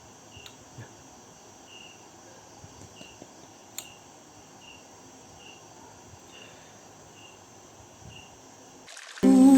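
Faint, evenly repeated short insect chirps, roughly one a second, over a steady high-pitched hiss. Music starts abruptly near the end.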